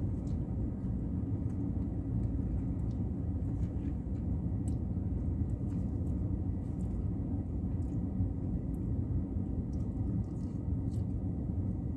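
Steady low rumble inside a car cabin, with faint scattered clicks from a plastic fork and eating.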